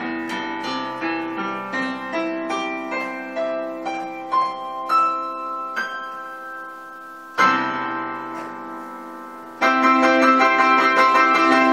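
Korg i4S keyboard played with a piano sound: a run of notes that ring on and overlap, then a chord about seven seconds in and a louder chord near the end that keeps sounding. The held notes show the sustain pedal working again after its loose jack was resoldered.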